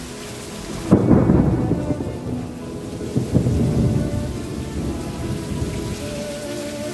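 Thunder: a sharp crack about a second in, then a long rolling rumble that swells again a couple of seconds later and slowly dies away, over the hiss of rain.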